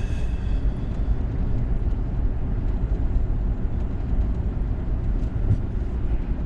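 Steady road and engine noise of a truck being driven, heard from inside the cab: a low, even rumble.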